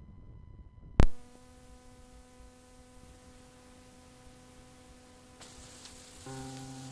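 Cassette playback starting: one loud click about a second in, then a faint steady hum. Hiss rises near the end, and music begins just before the end.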